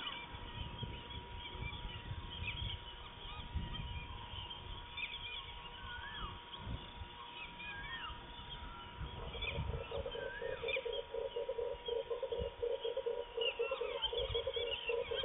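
Wild animal calls: scattered short rising and falling bird chirps, and from about nine seconds in a fast, low pulsing call that runs on for some six seconds, over a steady thin high hum.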